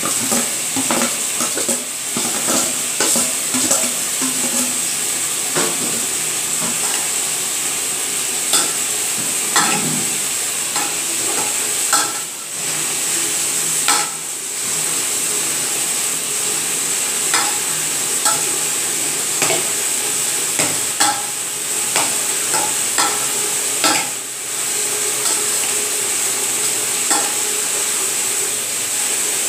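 Hand mixing cooked rice with grated raw mango in a stainless steel bowl: a steady soft hiss scattered with many short, light clicks.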